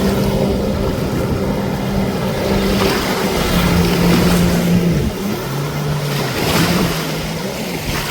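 Jet ski engine running at the water, with a hiss of water and wind. Its pitch holds steady, dips lower about five and a half seconds in, then rises again.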